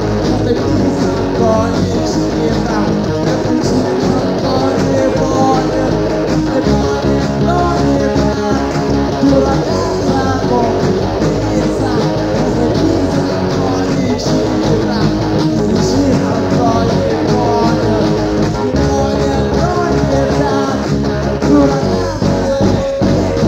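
Rock band recording: electric guitar, bass and drums playing a rock-and-roll song at a steady, loud level.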